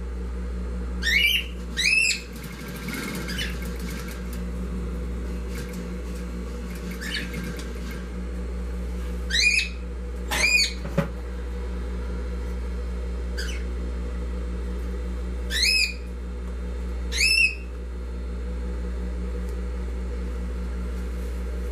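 Industrial sewing machine running steadily with a low motor hum as it stitches binding onto fabric. Over it a bird gives about seven short, sharp rising chirps, the loudest sounds, in small clusters.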